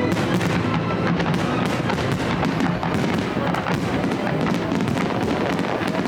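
A fireworks display: many shells bursting and crackling in quick, overlapping succession.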